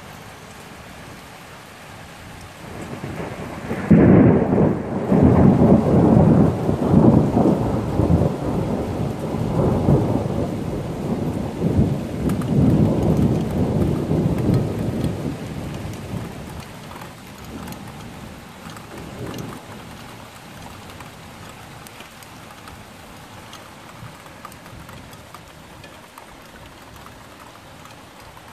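Rain falling steadily, with a clap of thunder that swells, breaks sharply about four seconds in, then rolls and rumbles in waves for over ten seconds before dying away.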